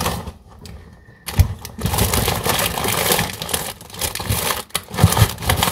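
Paper sachets of baking powder rustling and crinkling as hands rummage through a kitchen drawer, with small knocks and clicks. The rustling starts about a second in and goes on busily.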